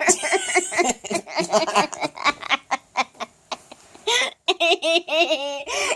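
A child laughing in quick, repeated bursts.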